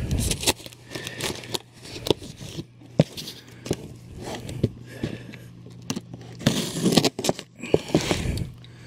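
Folding knife slitting the packing tape on a cardboard box: irregular scraping and crackling, with sharp clicks of the blade and cardboard.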